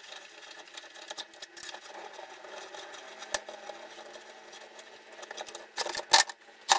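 Light metal clicks and rattles from a screwdriver working on a car scissor jack held in a bench vise, over a faint steady hum. A few sharper metal knocks come near the end.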